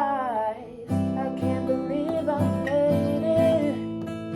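Guitar strummed chord after chord, about two strums a second, after a sung note that falls away at the start.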